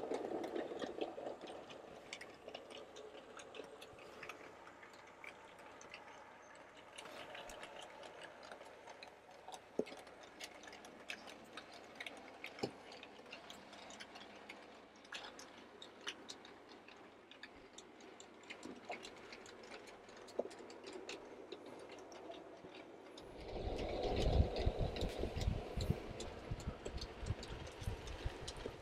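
OO gauge model tank engine in Brighton Works livery, an LB&SCR Terrier, running along the layout with a short rake of wagons: its wheels tick and click quickly and unevenly over the rail joints. For a few seconds near the end the running turns to a louder rumble.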